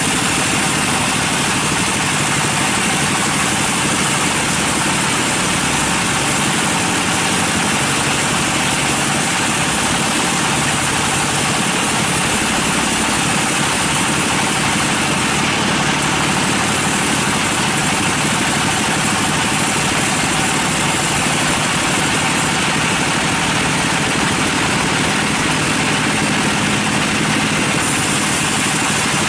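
Band sawmill blade cutting lengthwise through a large teak log, a loud, steady whirring of blade and machinery without pause.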